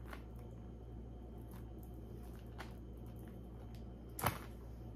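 Faint, scattered clicks and light taps from small jewelry pieces and packaging being handled, with one sharper click about four seconds in.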